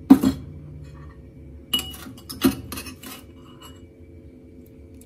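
Kitchenware clinking: a sharp knock just after the start, then a cluster of quick clinks with a short high ring from about two to three seconds in.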